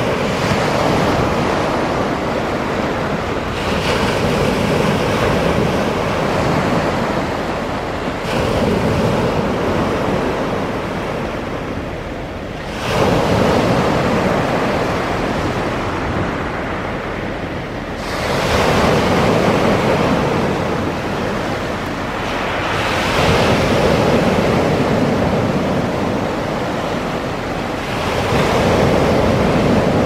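Small sea waves breaking onto a pebble beach and washing up the shore. The surf swells and falls back about every five seconds, six times over.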